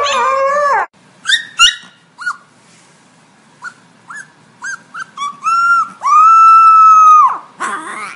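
Puppy giving short high yips and whimpers that build into one long, loud, steady howl, which drops off at its end. Before that, in the first second, another dog's drawn-out vocalizing cuts off.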